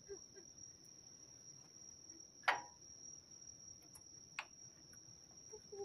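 A steady high-pitched insect trill, typical of crickets, holding one pitch throughout, with two sharp knocks, the louder about two and a half seconds in and a fainter one a couple of seconds later.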